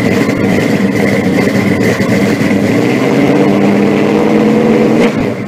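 A vehicle engine running steadily at a low speed, stopping about five seconds in and fading away quickly.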